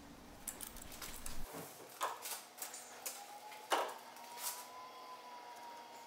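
Light metallic clicks and knocks from hand-handling a lathe's compound slide while setting it to the taper angle, the loudest knock near the middle. A low hum stops about one and a half seconds in, and a faint thin tone follows.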